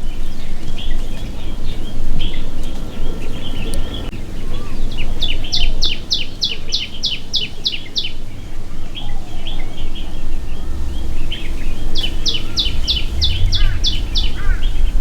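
Songbirds chirping and twittering throughout. Twice a bird gives a quick run of about ten high, evenly spaced notes, a few per second. A low rumble runs underneath.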